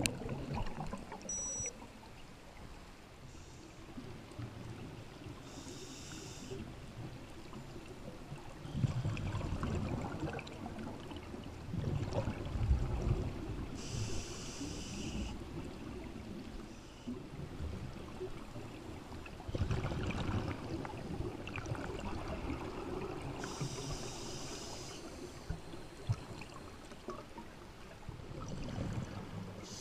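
Scuba divers' regulator exhalations heard underwater: muffled bubbling bursts every several seconds over a steady low rumble of water.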